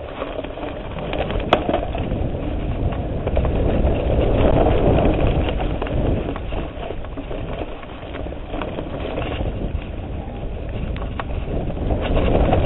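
Mountain bike riding fast down a dirt singletrack, heard from a handlebar-mounted camera: wind rushing over the microphone, tyres rolling on the dirt, and the bike rattling and knocking over bumps, with a sharp click about a second and a half in.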